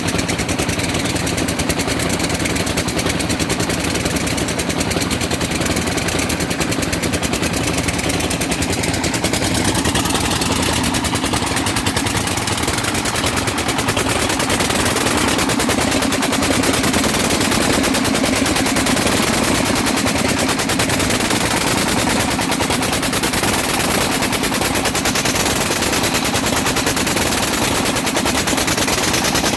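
Stationary diesel engine running steadily, a rapid, even knocking that holds at one speed.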